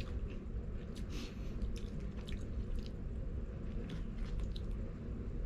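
Close-miked chewing of crispy fried chicken dipped in gravy, with a few short crackles scattered through, over a steady low background hum.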